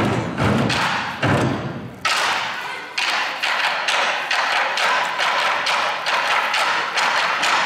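Korean moduembuk ensemble drumming: many drums struck together in an even beat, with deep booms for the first two seconds, then lighter, sharper strokes without the boom.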